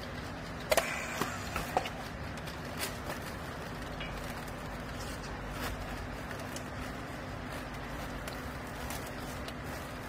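Steady hum of a vertical textile baler's hydraulic power unit running, with a cluster of sharp clicks and knocks about a second in and a few fainter ones later as a handheld strapping tool is worked on the plastic strap around the bale.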